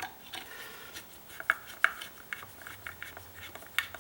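Irregular small metallic clicks and taps of a hand screwdriver working a screw out of crank-out window hardware, a few sharper ticks standing out.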